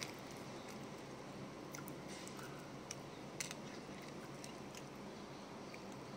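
Eating sounds: quiet chewing of soft fried radish cake and a plastic fork clicking against a plastic food container, a few short sharp clicks, the loudest about three and a half seconds in, over a steady background hiss.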